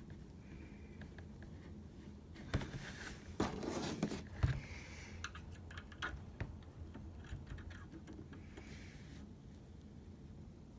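Light metal clinks, taps and scrapes from stainless steel tripod leg brackets being handled and fitted onto a wire mesh soldering screen, busiest a few seconds in and then sparser.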